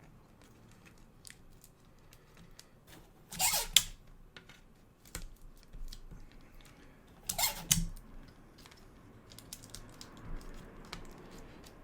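Tape being pulled off a roll twice, each a short squeaky rip of about half a second, with light handling clicks in between.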